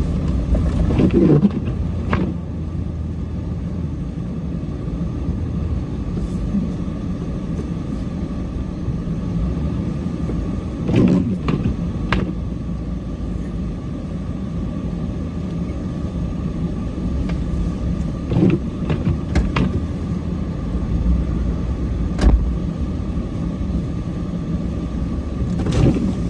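Cummins diesel truck engine running steadily with a low rumble. A few short knocks and clicks come now and then over it.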